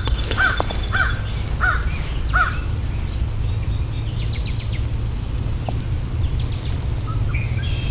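Crows cawing, a quick series of about half a dozen caws over the first couple of seconds, then stopping, with a steady low rumble underneath.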